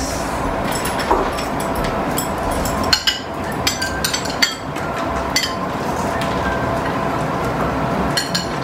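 Chopsticks clicking and clinking against ceramic plates as people eat: a scattered series of light, sharp clicks, the most of them between about three and five and a half seconds in, over a steady background hiss.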